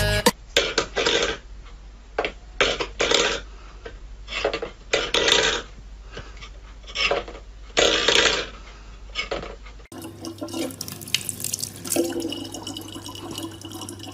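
Steel bowls clattering and scraping on a wooden floor in short, irregular bursts. About ten seconds in, this gives way to a kitchen tap running steadily, pouring water into a plastic water bottle.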